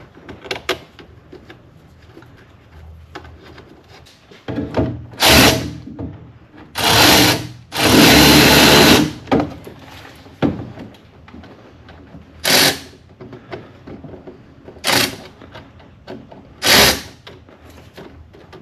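Power drill/driver running in short bursts, about six in all with the longest near the middle lasting over a second, as it drives the small T20 screws that hold down the engine's air filter housing cover.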